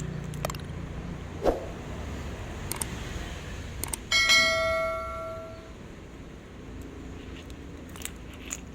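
A few light clicks and a knock, then a small metal object struck once about four seconds in, ringing with a bell-like tone that dies away over about a second and a half.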